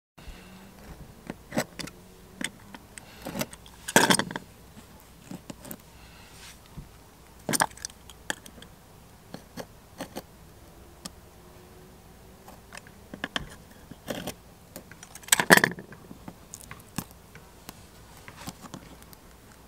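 Metal hand tool and stainless steel U-bolt hardware on a teak deck pad being worked by hand: scattered sharp metal clicks, clinks and small scrapes. There are louder clinks about four, seven and fifteen seconds in.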